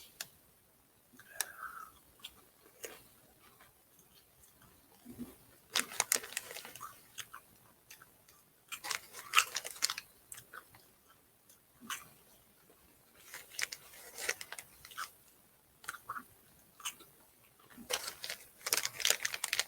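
A person chewing small crunchy ring-shaped snacks: bursts of crunching with quiet gaps between.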